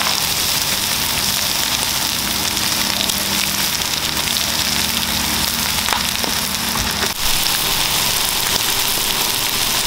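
Ground beef, onions and mayo-coated buns sizzling on a hot flat-top griddle: a steady frying hiss, with a brief break about seven seconds in.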